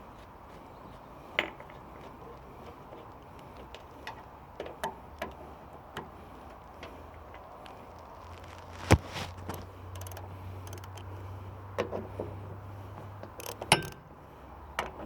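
Scattered metal clinks and knocks from hand work on an excavator, as tools and cover panels are handled. There are sharp knocks about a second in, about nine seconds in and near the end.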